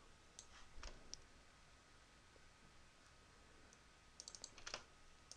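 Faint computer mouse clicks: a few single clicks about half a second to a second in, then a quick run of clicks near the end.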